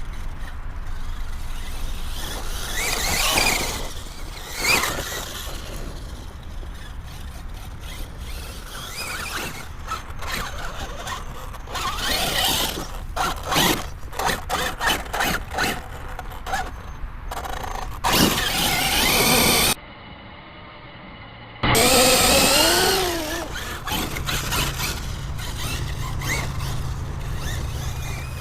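Axial Yeti XL RC truck's brushless motor and drivetrain running on 6S, with a high whine that rises and falls in pitch with repeated bursts of throttle, along with knocks and rattles from the truck driving over rough ground. The sound drops out briefly about two-thirds of the way through.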